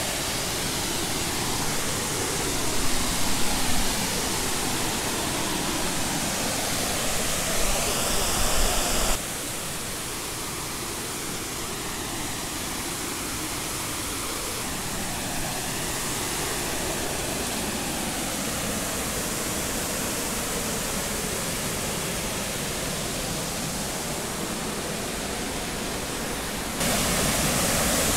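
Steady rushing of a waterfall close by, an even roar of falling water. A couple of brief louder gusts of noise come a few seconds in; the level drops about nine seconds in and rises again near the end.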